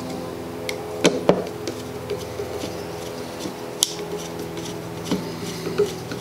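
Screwdriver turning a brush cap into an angle grinder's motor housing while the carbon brushes are refitted, with a few small clicks and scrapes of metal on plastic. A steady low hum runs underneath.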